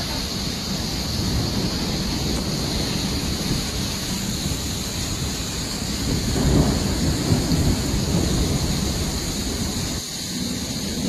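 Thunderstorm: steady rain hiss with thunder rumbling, swelling loudest about six to eight seconds in. Near the end the sound drops abruptly to a lighter rain hiss.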